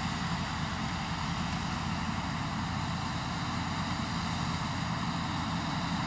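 Steady, unbroken drone of a Claas Lexion 570 combine harvester at work, threshing and unloading barley through its auger, mixed with the engine of the tractor running alongside.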